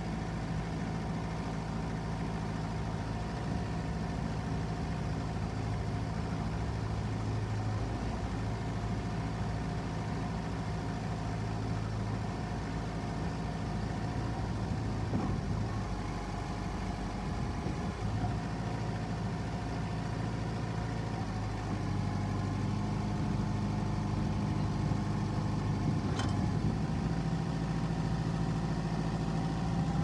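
Kubota M59 backhoe's four-cylinder diesel engine running steadily while the backhoe digs gravel, its note shifting and growing louder in the second half as the hydraulics work the boom and bucket. One sharp click late on.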